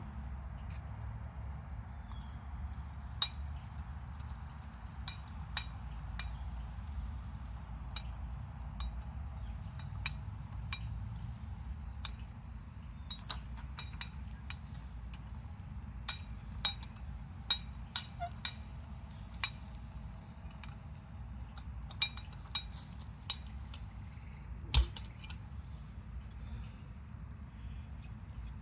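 Insects trilling steadily over a low, steady rush, with scattered sharp clicks and knocks at irregular intervals; a few knocks stand out, one about 25 seconds in being the loudest.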